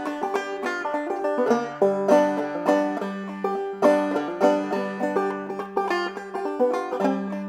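Banjo played clawhammer style: a quick, steady stream of plucked notes.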